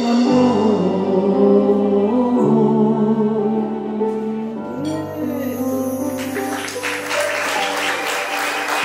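Live band with acoustic guitar and keyboard closing a song on a long sung final note and held chords, then audience applause and cheering building from about six seconds in.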